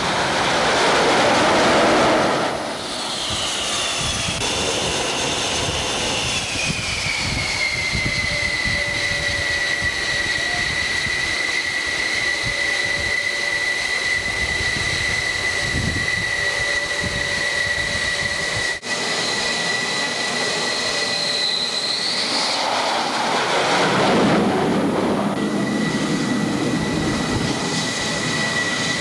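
Jet aircraft engine on a carrier flight deck, giving a loud, steady high whine that drops in pitch a few seconds in as the engine throttles back, then holds. About three quarters through the pitch rises again and a rush of jet exhaust swells up, as the engine is throttled up.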